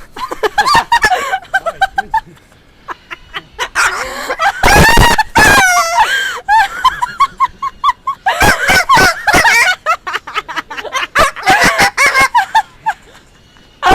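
A talking parrot chattering and squawking, with a loud harsh screech about five seconds in followed by a quick run of short whistled notes, then more chattering calls.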